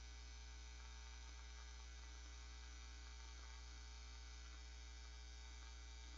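Near silence with a steady low electrical mains hum and faint hiss.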